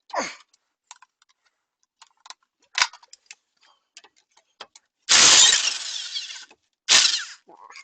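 Impact wrench hammering on a sway bar link nut in two bursts, a longer one of about a second and a half followed by a short one, after a few light metallic clicks from the tools.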